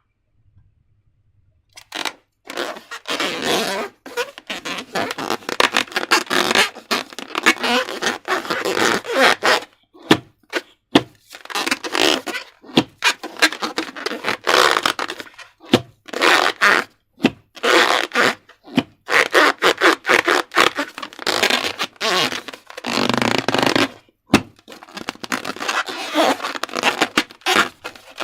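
Slime being squished and stretched by hand: wet squelching with many small crackling pops, in irregular stretches with short pauses. It starts about two seconds in, after a moment of near silence.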